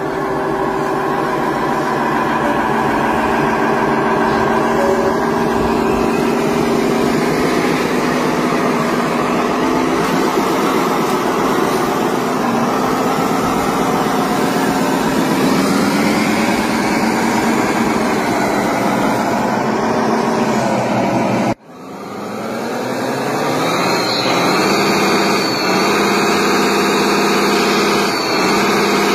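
Radio-controlled model dump truck running, a steady engine-like hum with several pitches that drift as the throttle changes. About two-thirds through the sound cuts out for an instant, then returns and rises in pitch.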